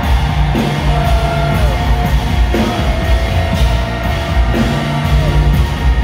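Live New Orleans-style brass band playing an up-tempo tune: trombones, saxophone and sousaphone over a marching bass drum, with a steady beat.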